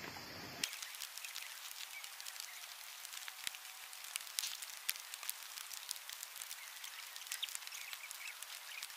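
Faint outdoor ambience: a steady high hiss with many small, irregular ticks scattered through it.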